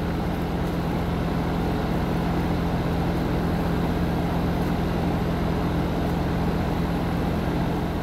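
Heat pump outdoor unit running steadily: the compressor's low, even hum under the air rush of the condenser fan. It is running normally again after its failed capacitor was replaced with new start and run capacitors.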